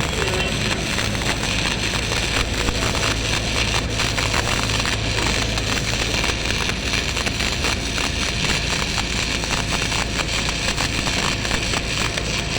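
Electric arc welding: the arc crackles and sizzles steadily with dense fine pops, over a steady low hum.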